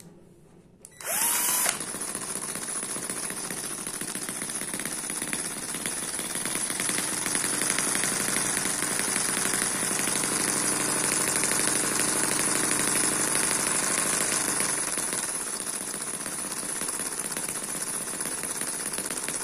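A cordless drill spins up on the starter adapter of an Eachine EM1 four-stroke opposed-piston model engine, which catches within about a second and runs steadily with a rapid exhaust popping. The popping is the sign of a good fuel mixture; without it the engine loads up and wets the spark plug.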